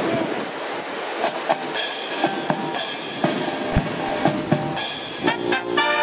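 Wind buffeting the microphone, then a scatter of short clipped notes and taps. Near the end a marching brass band strikes up a loud, sustained fanfare chord of trumpets and trombones.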